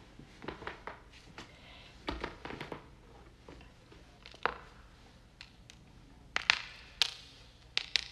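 Joints cracking: a series of sharp pops and clicks, a quick cluster near the start, another about two seconds in, a single pop about halfway, then several louder single cracks in the last two seconds. The pops are the release of gas in the joint fluid as a joint is stretched or adjusted.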